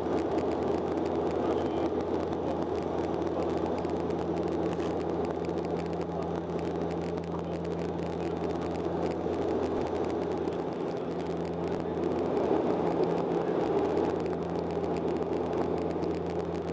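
Cabin noise of a Bombardier Dash 8-Q400 turboprop in flight: the steady drone of its six-blade propellers, a low hum under a constant rushing noise.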